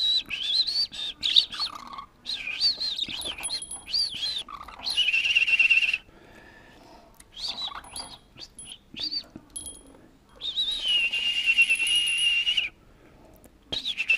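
Budgerigar chirping and warbling in short wavering bursts, then giving longer held raspy calls, the longest about two seconds, that cut off abruptly.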